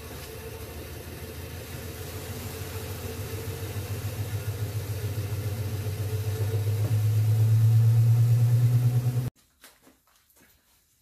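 Converted steel-drum clothes washer spinning a basket of washed greens: the spin motor and drum hum steadily, growing louder as it spins up to speed to throw water off the leaves. The sound stops abruptly about nine seconds in, leaving faint ticks.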